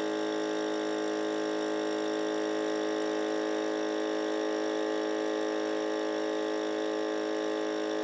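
Small portable electric air pump running steadily at an even pitch, inflating a small tire through a hose on its valve.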